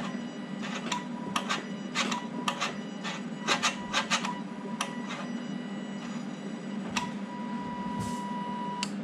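Honda K20 electronic drive-by-wire throttle body with the ignition on, its motor whirring and the butterfly plate snapping open and shut in a run of sharp clicks, busiest about halfway through; this is a function check that the throttle still works. A steady low hum runs underneath, and a steady high tone sounds at times, longest near the end.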